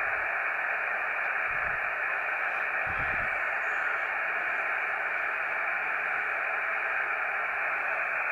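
Steady hiss of a radio receiver's audio with no signal in it, limited to the receiver's narrow voice passband, from the 24 GHz microwave station as it sits a little off the frequency of the signal being sought. A couple of faint low thumps come through about two and three seconds in.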